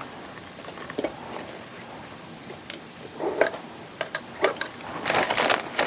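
Sphagnum moss being pulled apart by hand and pressed into a glass goblet: a few light clicks and short rustles, getting busier near the end.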